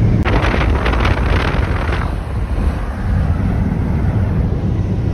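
Vehicle driving at road speed: a steady low road rumble with wind noise, and a louder rushing swell in the first two seconds.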